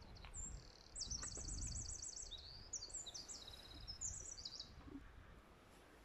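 A small songbird singing one high, varied song of about four seconds, with a fast trill of about ten notes a second and quick repeated phrases. A low rumble lies underneath.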